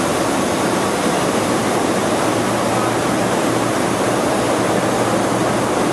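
Steady, loud roar of aircraft cabin noise in flight, with a low hum underneath, during a zero-g parabola.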